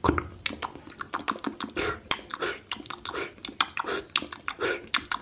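Close-miked ASMR hand and mouth sounds: a fast, irregular run of sharp wet clicks and pops, with short swishy bursts about every second.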